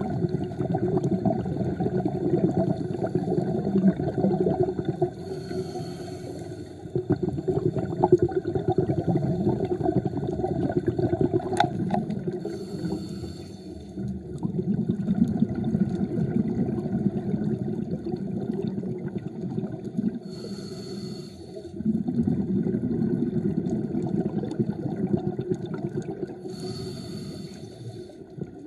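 Scuba diver breathing through a regulator underwater, heard through the camera housing: long stretches of rumbling exhaust bubbles, with a short hiss of the regulator on each inhalation about every seven seconds, four times.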